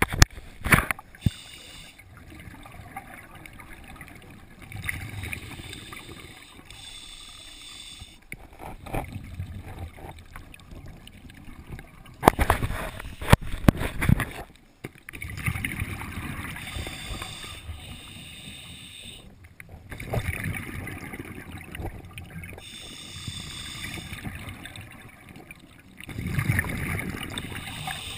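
Scuba breathing heard underwater through the camera housing: a surge of regulator hiss and bubbling every four to six seconds. There are a few sharp knocks on the housing near the start and about halfway through.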